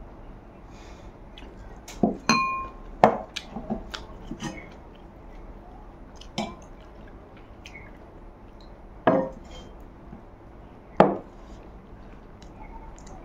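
A drinking glass clinking against the table and glassware. A sharp clink rings briefly about two seconds in, followed by several lighter knocks, then two more sharp knocks later on.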